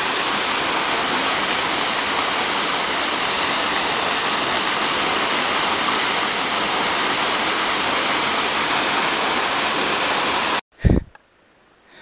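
Small waterfall, about 10 m high, pouring into a rocky pool: a steady, even rush of falling water close to the microphone. Near the end it cuts off abruptly, followed at once by a short, loud, low thump.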